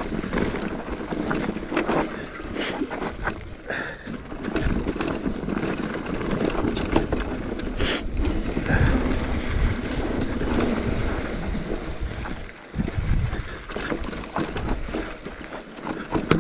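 Mountain bike riding down a rocky dirt trail: tyres crunching over dirt and loose stones, with wind rumbling on the microphone and a few sharp clatters.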